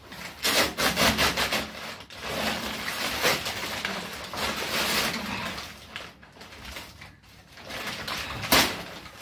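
Thick brown paper courier bag being ripped and crumpled open by hand, a stiff crackling rustle, with the plastic wrapping inside rustling as it is pulled at. There is a sharp, loud rip near the end.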